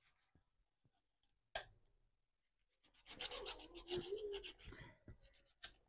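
Knife cutting through a raw chicken's wing joint: a sharp click about one and a half seconds in, then a dense run of scraping and clicking in the second half.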